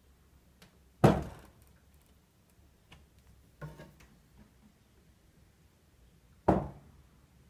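Bosch fridge door knocking loudly as it is swung wide, a sharp knock about a second in and another near the end, with a fainter knock between them. The knock comes just before the door is fully open and again when it is almost closed, and the uploader treats it as a door fault.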